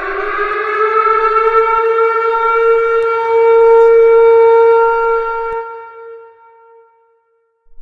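Air-raid siren wailing as an attack warning: the tone rises in pitch, holds steady, then fades away about six seconds in. A new rise starts right at the end.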